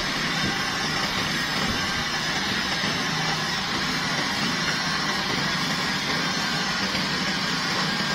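Heavy machinery engine running steadily, most likely the crane holding the concrete bucket during the pour.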